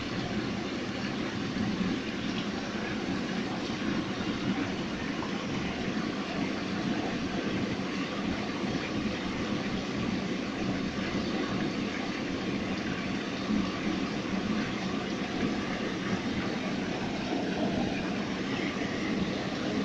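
Steady rush of water flowing through a trout hatchery trough, a continuous even noise with no distinct events.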